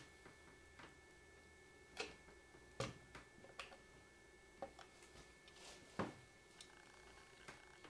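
Faint, scattered clicks and light taps of hand tools on metal while prying the head cover off the engine, with a few sharper knocks about two, three and six seconds in.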